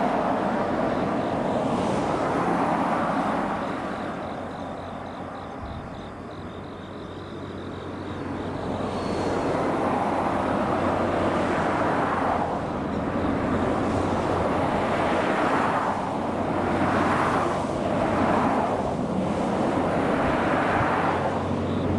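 JR West 87-series diesel train (Twilight Express Mizukaze) approaching, its engines running with a steady low hum under a broad rumble. The rumble dips a few seconds in, then swells and eases several times as the train draws closer.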